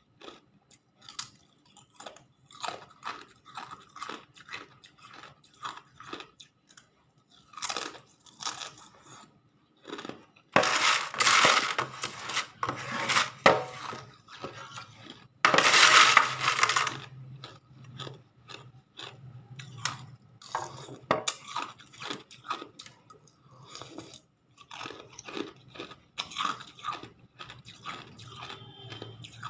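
Hard ice being bitten and chewed close to the microphone: a steady run of short, sharp crunches and cracks, with two louder stretches of dense crunching about ten and sixteen seconds in.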